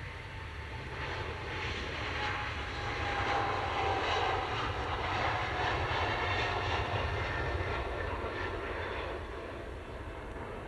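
Boeing 777 jet engines passing by, the noise swelling to a peak a few seconds in and then fading, with a whine that falls in pitch as the aircraft goes past.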